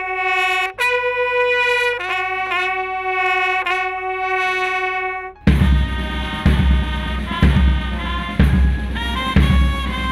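Military bugles sounding a slow call of a few long held notes. About five and a half seconds in this cuts to band music with brass and a drum beating about once a second.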